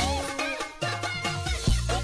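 Upbeat background music with short plucked notes. A deep bass kick that drops in pitch comes in near the end.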